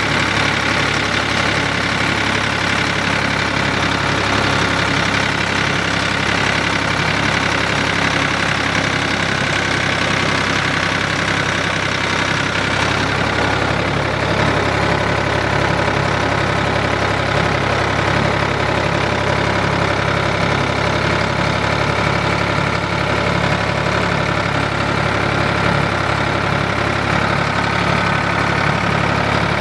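Tractor engine running at a steady, unchanging speed while driving.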